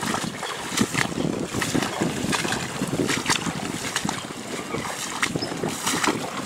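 Wind buffeting the microphone with rain, and irregular sloshing from wading through ankle-deep water in a flooded rice paddy.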